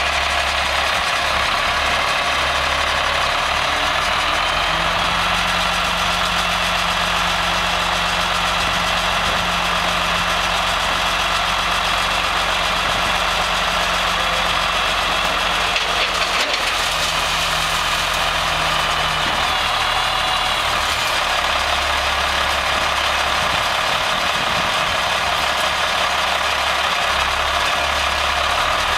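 Diesel engine of a 1993 International 8100 single-axle dump truck running steadily with a knocking clatter while the hydraulic hoist tips the dump bed up.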